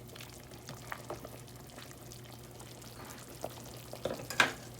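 Pot of chicken soup boiling on the stove: a faint steady bubbling hiss with a few light clicks, and one sharp knock near the end.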